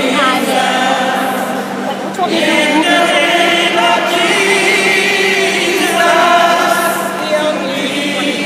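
A group of voices singing a hymn together, unaccompanied, with long held notes.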